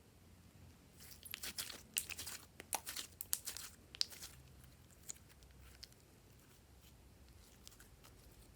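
Crisp crackling and crinkling from slime-making materials being handled: a dense run of sharp clicks and crunches for about three seconds, then a few scattered ticks.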